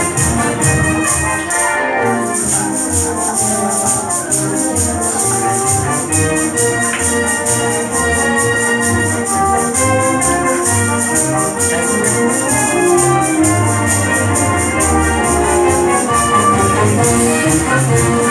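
Music with a steady beat and a timbrel brigade's tambourines jingling and shaking in rhythm over it, with a short break in the jingling about two seconds in.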